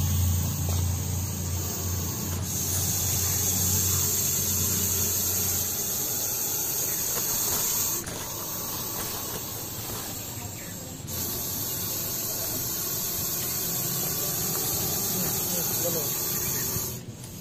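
Russell's viper hissing in long drawn-out breaths, each hiss breaking off and starting again several times.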